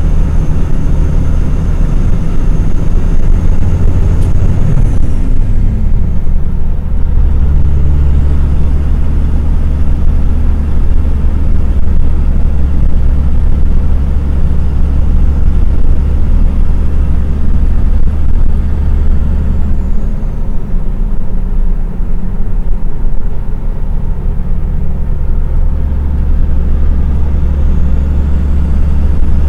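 Logging truck's diesel engine running, heard from inside the cab as a loud, steady low rumble. Its pitch drops about five seconds in, and the rumble eases for a few seconds after about twenty seconds before coming back.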